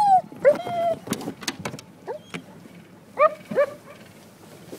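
Search-and-rescue dog whining in short, high-pitched yelps: one at the start, another half a second in, and a quick pair about three seconds in, with a few sharp knocks in between. The whining is the dog's alert on a scent over the water.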